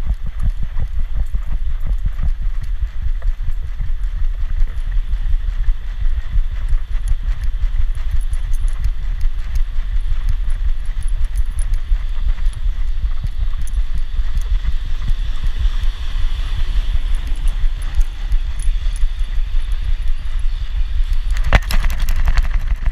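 Rapid, uneven low thudding from a GoPro camera strapped to a moving dog's back, jolted with every step, over faint outdoor background noise. One sharp click near the end.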